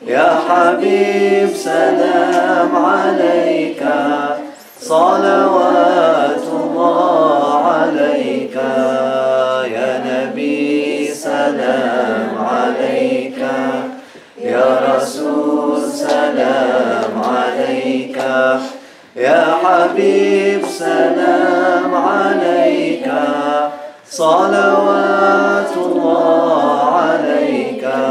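Unaccompanied group chanting of an Arabic devotional dhikr, men's and women's voices singing together. It goes in sung phrases of several seconds, with brief breaks for breath between them.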